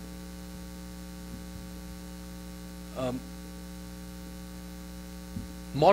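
Steady electrical mains hum with many even overtones in the microphone and sound system, and one brief short sound about halfway through.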